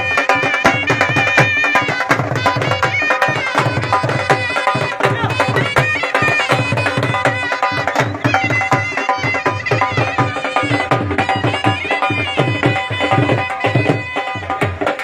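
Traditional folk music with a steady hand-drum beat under a reedy wind-instrument melody.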